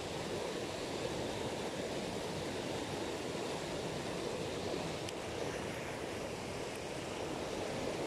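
Steady rushing of a shallow river running over rapids.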